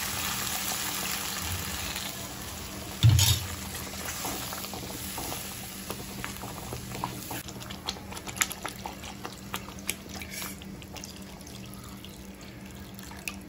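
Coconut milk poured into hot masala paste in a non-stick wok, with a hiss that fades over the first few seconds as the pan fills. A low knock about three seconds in, then light clicks and scrapes of a wooden spatula stirring the gravy.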